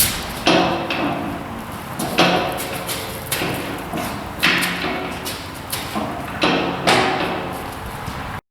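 A series of sharp metal clanks, roughly one a second, each ringing briefly, cut off abruptly near the end.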